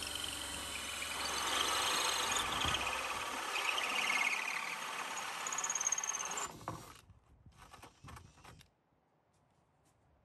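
Cordless drill spinning a 2 3/8-inch hole saw through a cedar plank: the motor whining and the saw teeth grinding into the wood. It stops about seven seconds in, leaving only a few faint clicks.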